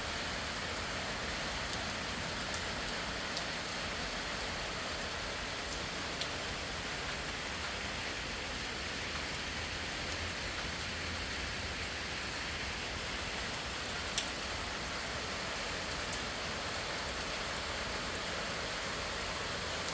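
Steady, gentle rain falling, an easy soaking rain. Two sharper single drip taps stand out, about six and fourteen seconds in.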